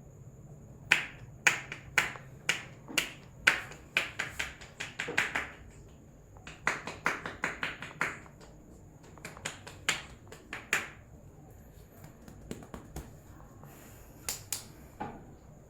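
Sharp snapping cracks made by a barber's hands and fingers during a head massage, in irregular runs of quick snaps with short pauses between them.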